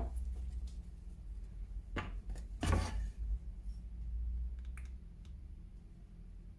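Wooden strip being handled on a workbench: two short knocks about two seconds in as it is lifted, then a few faint ticks, over a steady low hum.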